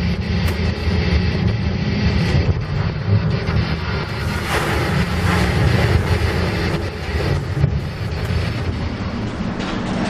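Steady low rumble of a ship's engine, under storm wind and heavy sea. About halfway through, a louder wash as a wave breaks over the bow and spray hits.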